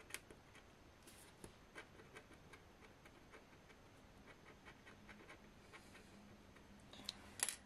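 Faint scratching as a pen-shaped metal tool scrapes the coating off a scratch-off card: an irregular run of short scrapes, with a few louder ones near the end.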